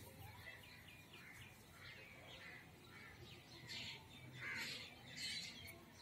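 Crows cawing, three harsh calls in the second half, over faint steady twittering of small birds.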